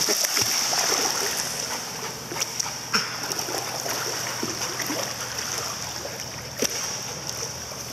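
Pool water splashing and churning as a Doberman swims and paddles close by, with a few sharp slaps of water. It grows quieter toward the end.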